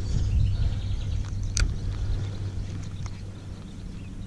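Low wind rumble on the microphone, easing off toward the end. Over it come one sharp click about a second and a half in and a few fainter ticks from the spinning reel and rod being handled during a cast and retrieve.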